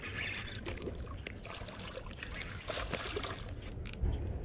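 Water splashing as a small hooked northern pike thrashes at the surface while being reeled in, over a steady wind rumble on the microphone. Scattered light clicks, with one sharp click near the end.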